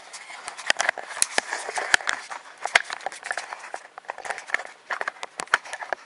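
Handling noise from a hand-held camera being moved about and positioned: rustling with many irregular sharp clicks and knocks.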